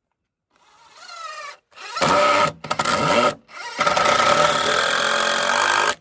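Cordless drill driving screws into wooden boards: the motor spins up with a rising whine, then runs hard three times with short pauses between, the last run cutting off suddenly.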